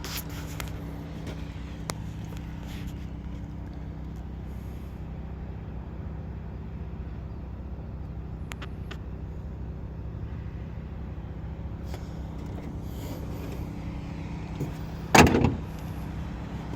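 A steady low motor hum, as from an engine running, with a few faint clicks and one loud, brief noise about fifteen seconds in.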